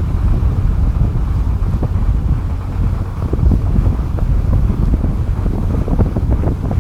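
Wind buffeting the microphone: a loud, fluttering low rumble with no steady pitch.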